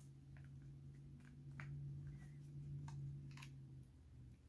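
Faint, sparse plastic clicks and taps from handling a PS5 DualSense charging station and its power cord, over a steady low hum that stops near the end.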